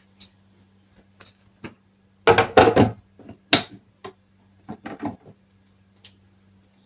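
A series of knocks and clatters from objects being handled and set down, with a loud cluster about two seconds in and a few more near five seconds. A faint steady hum underneath.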